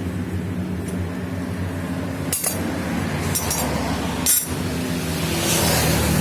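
Yamaha RX-King's two-stroke single-cylinder engine idling steadily, with a few sharp metal clinks about two and a half, three and a half and four and a half seconds in.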